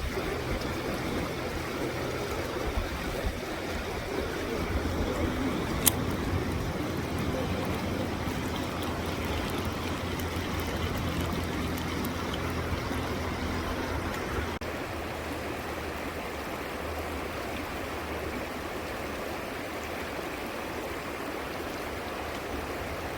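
River current rushing steadily, with one sharp click about six seconds in.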